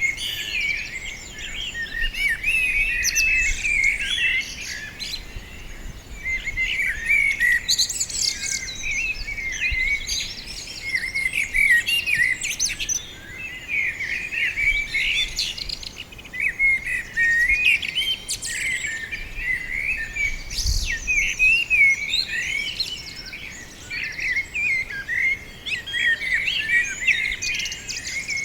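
Several small songbirds chirping and twittering at once, a dense, continuous chatter of short high notes and trills with brief lulls. A faint low rumble of wind sits underneath at times.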